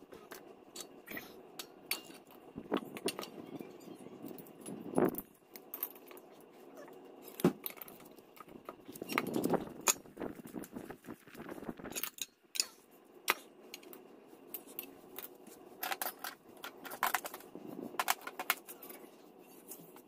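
Metal hand tools and engine parts clinking, clattering and knocking as a 50cc scooter engine is taken apart, with several louder knocks among many small clinks.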